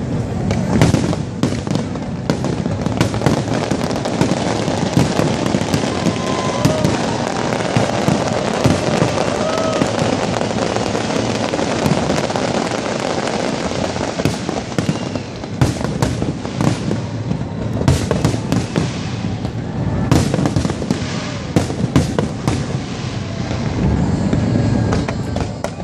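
Aerial fireworks display: shells bursting in rapid succession, a continuous dense crackle punctuated by many sharp bangs, with a cluster of the strongest bangs in the second half.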